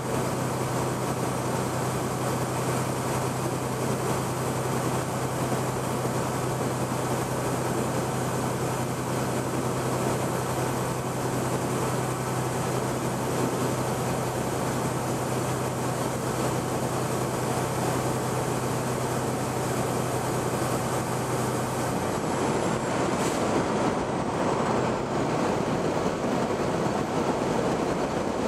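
Road and engine noise inside a semi truck's cab cruising on the highway: a steady rushing noise under a low hum, the hum dropping away about three-quarters of the way through as the rushing grows a little louder.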